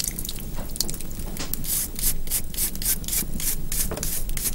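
A black truffle being scraped and rubbed by hand: quick, rhythmic scratchy strokes, about four a second.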